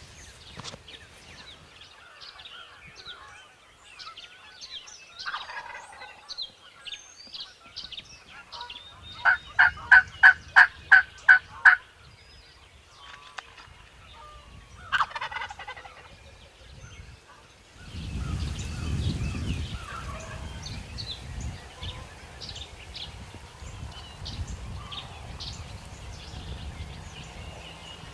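Wild turkey gobbling a few times, with a loud run of about nine evenly spaced turkey yelps in the middle. In the last third, a steady wind rumble with faint songbird chirps.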